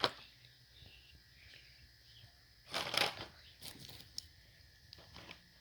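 Packaging being handled: a sharp click at the start, a short rustle or tear about three seconds in, then a few light taps and clicks.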